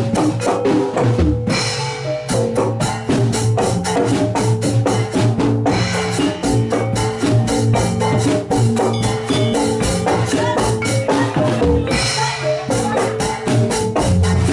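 Javanese gamelan playing jathilan music: metallophones ringing out a fast, even pattern over steady drumming. Twice the pitched notes and drum drop out for a moment under a wash of high hiss before the pattern resumes.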